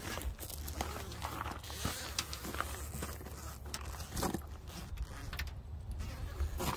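Zipper on a soft-shell rooftop tent's waterproof cover being pulled along its edge, rasping in short, irregular stretches over a low rumble.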